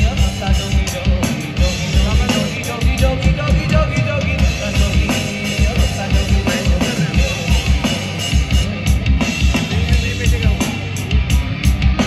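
Live band playing amplified through PA speakers: a drum kit keeps a steady, driving beat with a heavy kick drum under electric guitars.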